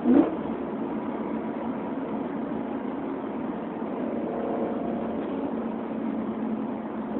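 Car engine and exhaust, fitted with off-road pipes and the stock exhaust, giving a short loud rev blip right at the start as in a downshift, then running on in a steady drone with a slight swell in pitch about four seconds in.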